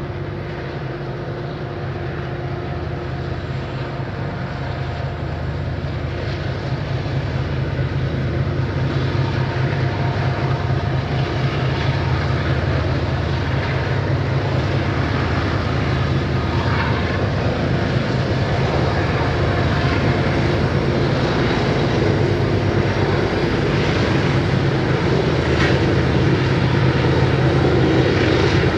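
A lash-up of several Union Pacific diesel-electric freight locomotives running, a steady low engine drone that grows gradually louder as the units draw near.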